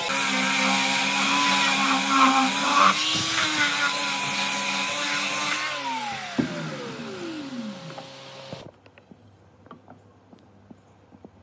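Electric power tool running with a steady motor hum and rush, then switched off about six seconds in and winding down, its pitch falling, before the sound stops abruptly; a few faint light clicks follow.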